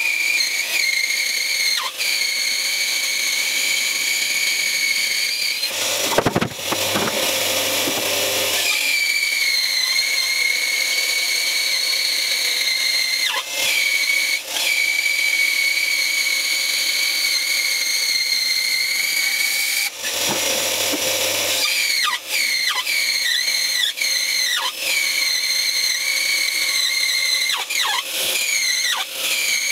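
Bandsaw cutting along an oak board, the blade giving a loud, steady, high-pitched squeal that wavers slightly and slides in pitch near the end. The squeal gives way twice to a rougher, lower noise with a hum, about six seconds in and again about twenty seconds in.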